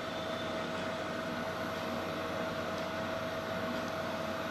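Steady background room noise: an even hiss with a faint steady tone under it, unchanging throughout.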